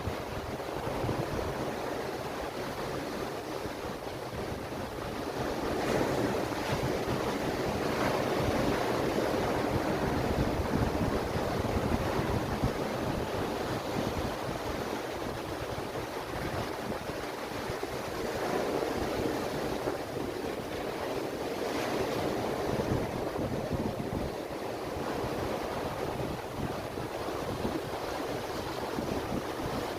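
Ocean surf washing onto a beach, a steady rushing wash that swells louder twice as waves come in, with wind buffeting the microphone.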